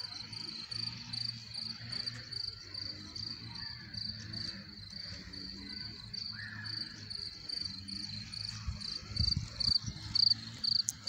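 A cricket chirping steadily and evenly in a high pitch, about three chirps a second, over a faint low hum.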